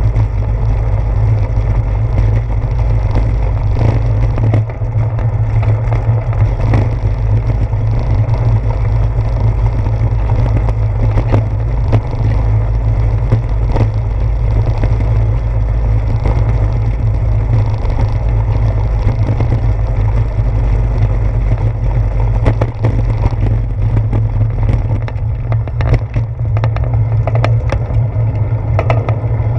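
Steady low rumble with scattered rattling clicks from a bicycle rolling over a brick-paved street, picked up through a seat-post-mounted GoPro Hero 4.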